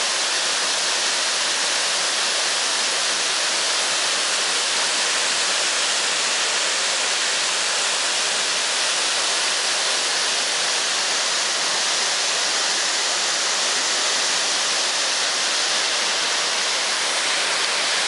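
Waterfall pouring down a rock face into a creek, running full and muddy with rainwater: a steady, even rush of falling water with no let-up.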